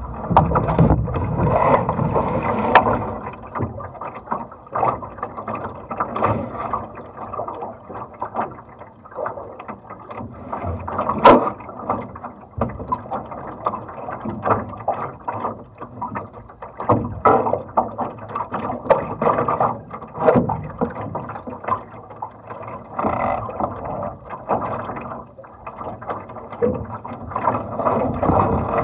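Water rushing and slapping against the hull of a small sailing dinghy under way, with wind on the microphone and irregular knocks and clicks from the boat, one sharp click about eleven seconds in.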